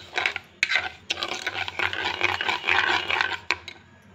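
Steel spoon stirring granulated sugar into cream and oil in a bowl: a gritty scraping in repeated strokes, with sharp clicks where the spoon knocks the bowl. It stops near the end.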